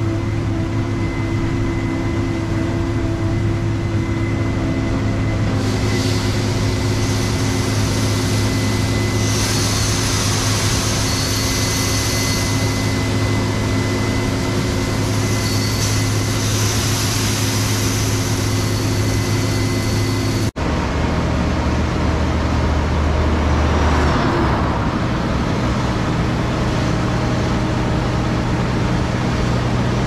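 Case IH Axial-Flow combine harvesters running steadily at harvest, a stack of steady engine tones. A higher hiss joins about six seconds in, and about two-thirds through the sound cuts abruptly to another combine running.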